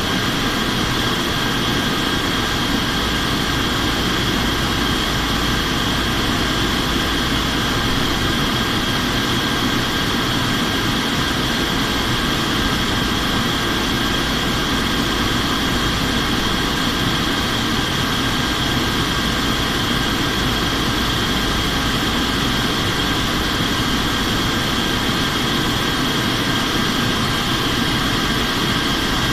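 Steady interior noise of an aircraft in descent, heard inside the flight deck: an even rush of airflow and engine rumble with two steady high-pitched whining tones over it, unchanging throughout.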